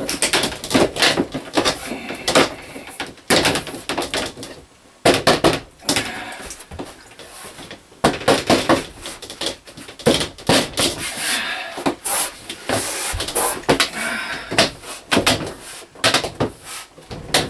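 Thin, flimsy plastic shower-stall wall panels being handled and pushed into their rails, with irregular knocks, clatters and rattles of the flexing plastic.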